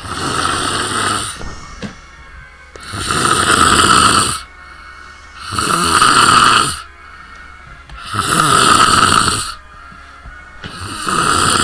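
A person snoring loudly, five snores about two and a half seconds apart, each lasting about a second and a half.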